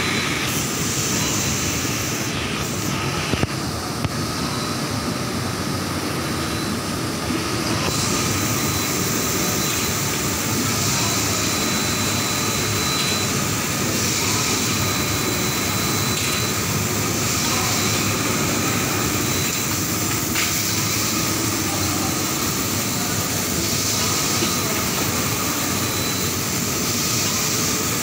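Steady running noise of industrial textile machinery, fabric rollers and flatbed printing machines, with a faint high whine that comes and goes.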